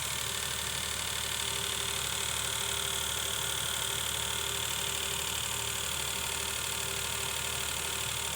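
Daihatsu Hijet EF-VE three-cylinder engine idling steadily, running after its overhaul.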